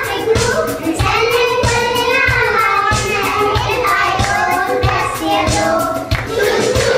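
Kindergarten children's choir singing in unison to music with a steady beat.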